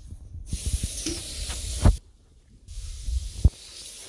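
Two bursts of hissing noise, each about a second and a half long and ending in a sharp thump.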